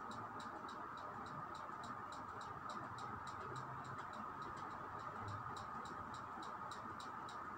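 Quick, even ticking, about four ticks a second, over a faint steady hiss.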